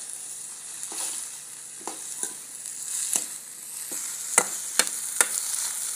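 A masala of tomatoes, onion and cashews sizzling in a kadhai while a steel ladle stirs it, with a steady hiss and about eight sharp clinks of the ladle against the pan, the loudest in the second half.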